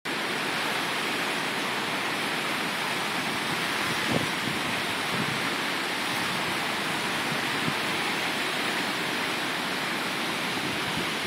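Schoharie Creek in flood: a swollen, muddy river rushing past as a steady, even wash of water noise.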